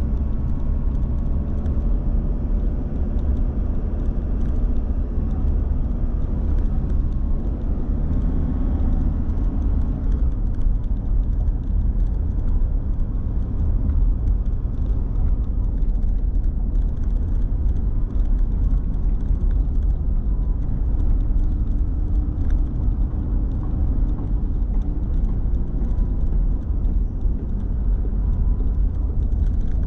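Steady low rumble of a car being driven through city streets: engine and tyre noise, with faint humming tones over it.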